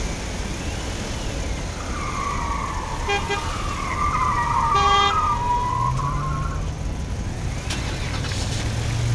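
Vehicle sound effects laid over the toy scene: two short car-horn toots about a second and a half apart, over a long tone that dips and rises in pitch, with a low engine-like hum coming in near the end.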